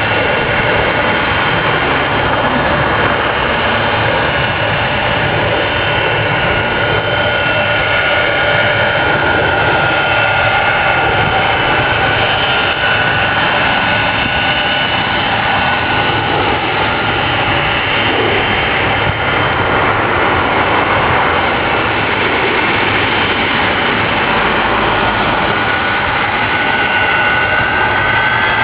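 Boeing 767-400 jet engines running steadily, a loud rush with a high whine of fan tones; near the end the whine begins to rise in pitch as the engines spool up.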